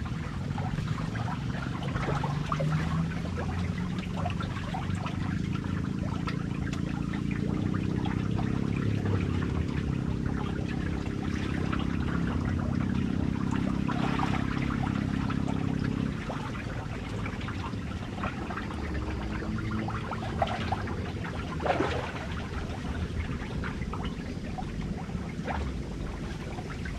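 River water lapping and trickling against a wooden jetty, with small splashes throughout. Underneath runs a low steady motor hum that cuts off about sixteen seconds in.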